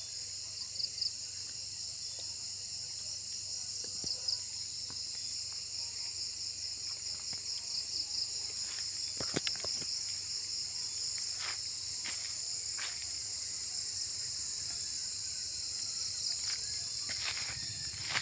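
Night-time chorus of crickets and other insects: steady, high-pitched trilling in several layers. A few short sharp clicks come in from about nine seconds in.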